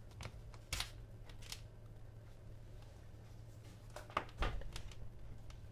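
Light clicks and taps of hands handling a power bank, USB plugs and cables on a tabletop: a few in the first second and a cluster about four seconds in.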